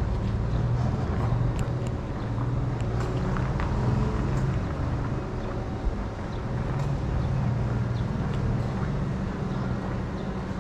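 City street ambience: a steady low rumble of road traffic that swells and eases gently, with a few faint clicks.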